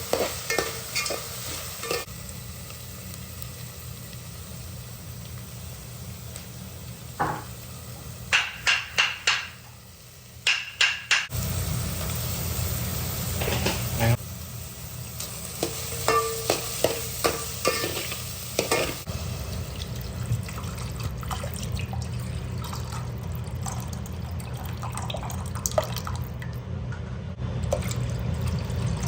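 Soup cooking in a pot: a spoon stirring and clinking against the pot, with runs of sharp taps about eight seconds in and again around sixteen seconds, over a steady low hum.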